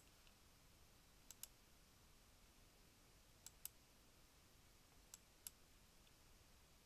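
Computer mouse clicking: three quick pairs of clicks about two seconds apart, over faint room hiss.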